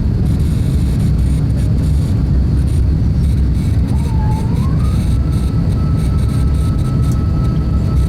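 Steady low cabin rumble of an Airbus A350-1000 climbing after takeoff: its Rolls-Royce Trent XWB-97 engines and the airflow. About halfway through, a mechanical whine starts, dips, rises and then holds at a steady high pitch.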